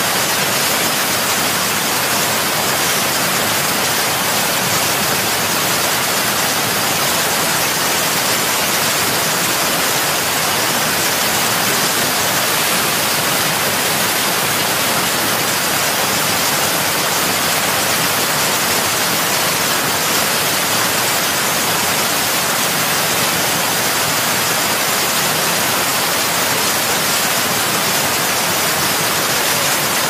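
Steady rushing of falling water, an even hiss with no change in level or pitch.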